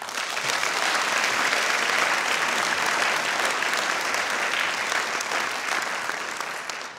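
Audience applauding, starting at once and tapering off near the end.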